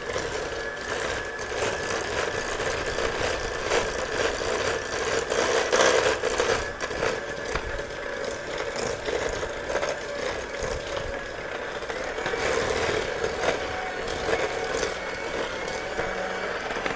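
Electric hand mixer running steadily, its wire beaters clattering and scraping against a stainless steel bowl as they beat egg yolks into creamed butter and sugar. The motor's whine rises a little in pitch about twelve seconds in.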